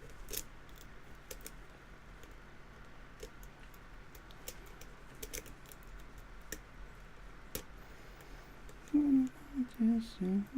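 Sparse, irregular light clicks of a lock pick and tension wrench working the pins of a spool-pinned padlock. About nine seconds in, a man starts humming a tune.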